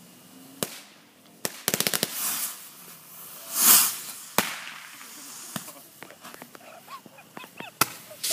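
Fireworks going off: single sharp bangs, a quick crackling string of about six pops, and a loud rushing hiss about three and a half seconds in, from bottle rockets pushed too far into the ground that go off there instead of flying.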